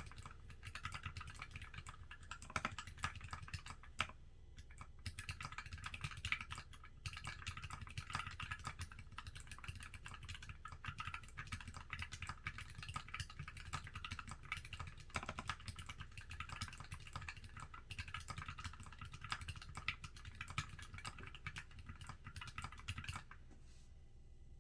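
Typing on a mechanical keyboard fitted with Krytox-lubed Tealio V2 linear switches, an aluminium case and PBT keycaps: a fast, steady run of keystrokes with a brief pause about four seconds in, stopping shortly before the end.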